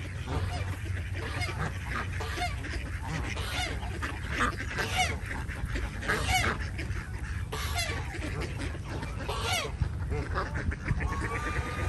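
A flock of Canada geese honking, with many short calls repeating and overlapping, some louder honks standing out. A steady low rumble sits underneath.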